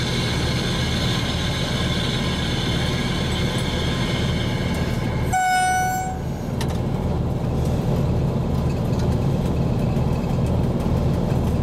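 SU45 diesel locomotive under way, its engine and running gear giving a steady low rumble. A high whine fades over the first few seconds, and one short horn blast sounds a little past five seconds in.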